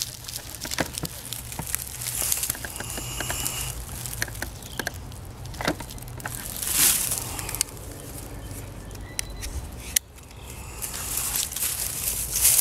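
Dry leaves, pine needles and twigs on the forest floor rustling and crunching under someone moving about, with scattered sharp clicks and knocks.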